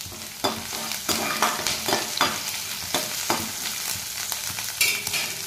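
Garlic, grated ginger and green chillies sizzling in hot oil in a kadhai, with a perforated steel slotted spoon scraping and clinking against the pan in a string of uneven strokes as they are stirred.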